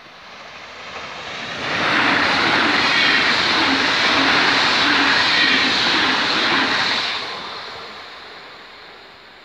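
Regional passenger train passing at speed: a rushing noise of wheels on rails that swells about a second in, stays loud for about five seconds, then fades away.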